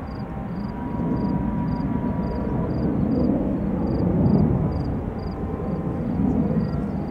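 A distant aircraft passing over: a low rumble that swells to its loudest about four seconds in and then eases off. Steady insect chirping, about two chirps a second, runs underneath.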